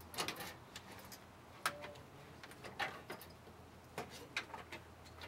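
A handful of irregular light clicks and knocks as an aluminium radiator is worked by hand into its mounts in a car's engine bay.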